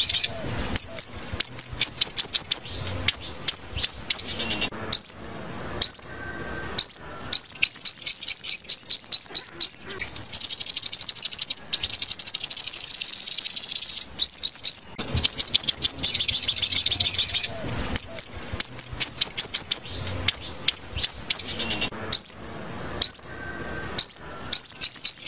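Sunbird song: loud, fast runs of high, thin sweeping chirps, with a longer buzzy high trill about ten seconds in.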